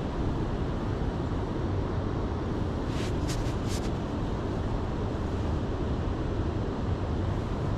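Steady low outdoor rumble, with a few short high hisses about three seconds in.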